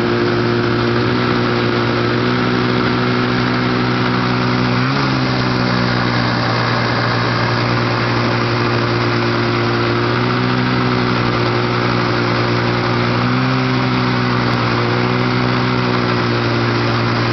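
A 1971 Polaris TX Charger snowmobile's two-stroke engine, heard close up from the seat, running at low, steady speed. Its pitch lifts briefly a few times as the throttle is touched.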